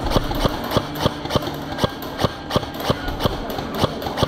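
Quick footsteps of a person moving fast on a hard floor, an even run of about three steps a second.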